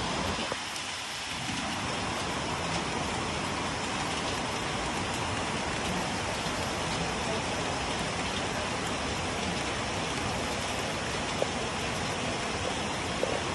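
Steady rain falling on corrugated metal roofs, an even hiss throughout, with a couple of sharp drop ticks near the end.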